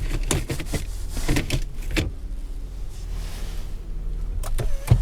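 Car cabin sounds: a steady low hum under a few short knocks and clicks, with a sharper knock near the end.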